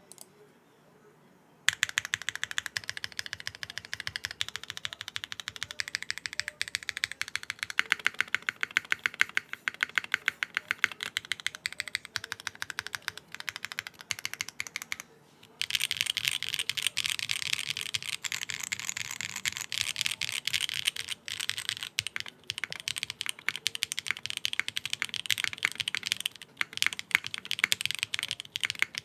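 Typing on a QK60 R2 mechanical keyboard with Kailh BCP switches in an aluminium plate, no foam, and DCS-profile keycaps: a fast, continuous run of clacky keystrokes. It starts after a second or so of quiet, stops briefly about halfway, then resumes louder.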